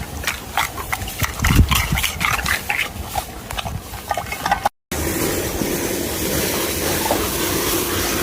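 A dog snorting and grunting in quick, irregular snuffles, with a few deeper grunts about a second and a half in. After an abrupt cut about two-thirds of the way through, a steady whooshing noise with a low hum takes over.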